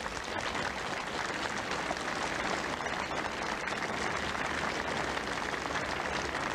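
A large crowd of schoolboys applauding, a steady dense clapping that holds at an even level.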